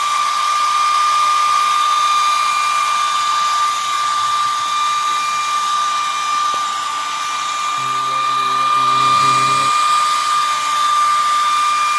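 Heat gun running at full speed: a steady high whine from its fan motor over a hiss of blown air.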